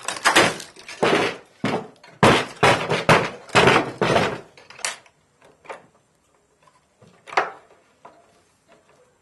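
Wooden knocking and clattering as a hinged, carved wooden puppet case is handled and opened and its jointed wooden figures knock about: a dense run of knocks over the first five seconds, then a few scattered clicks and one sharper knock near the end.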